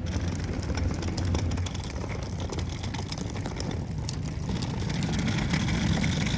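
Steady low rumble of a car on the move, with road noise and small rattles over it, growing slightly louder in the second half.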